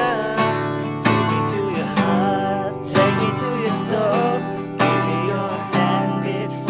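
Acoustic guitar strummed in steady chords, a stroke about once a second, with a wavering melody line over the chords.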